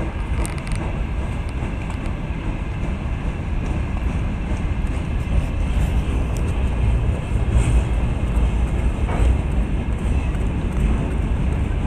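Railway station platform ambience: a steady low rumble, with a few faint clicks.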